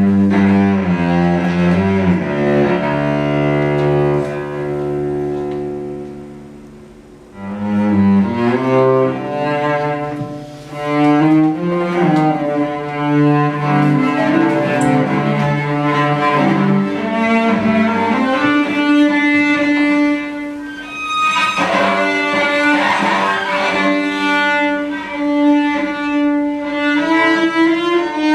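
Solo cello bowed in free improvisation: long held notes, low at first, that fade away around six seconds in and swell back a moment later, then climb to higher, shifting pitches.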